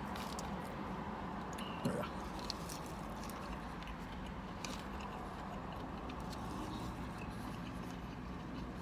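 A man chewing food, with faint clicks of a plastic fork in a plastic salad container, over a steady low hum in a car cabin.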